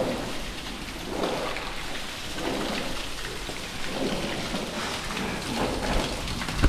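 Water from a hose spraying onto piglets and the wet concrete floor of their pen, a steady hiss like rain, with lower sounds swelling about once a second or so.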